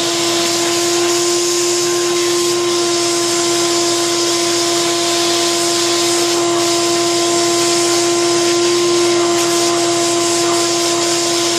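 Shop vac running steadily with a constant whine and rushing air, pulling through a homemade bucket cyclone separator as its hose nozzle sucks wood scraps and dust off a concrete floor.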